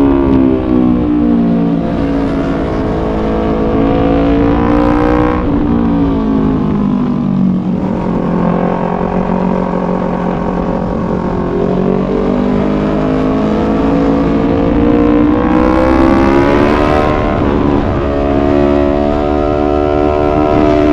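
Yamaha YZF-R3 parallel-twin engine on the move, its note falling over the first seconds, dipping again around five to seven seconds in, then climbing slowly for several seconds before dropping and rising once more near the end.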